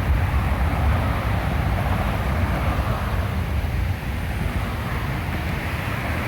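Strong gusting wind buffeting the microphone: a loud, uneven low rumble with a rushing haze over it, easing slightly about four seconds in.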